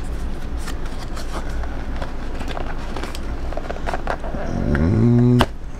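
A small cardboard retail box and its plastic wrapping are handled, giving scattered light taps and crinkles over a steady background whir. About four and a half seconds in comes a short voiced sound that rises in pitch.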